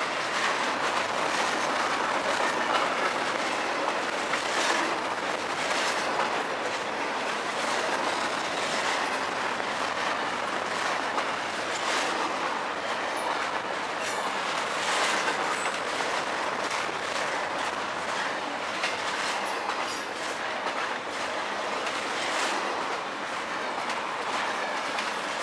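CSX double-stack intermodal freight train rolling past close by: a steady rush of steel wheels on rail with frequent clicks as the well cars go by.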